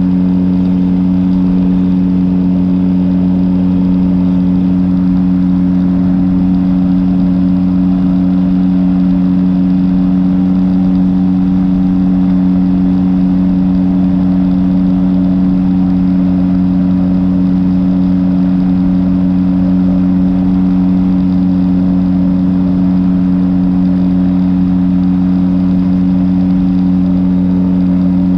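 Rotax 503 DCDI two-cylinder two-stroke engine of a Phantom X1 ultralight running loud and steady at an unchanging pitch, with a haze of air noise under it.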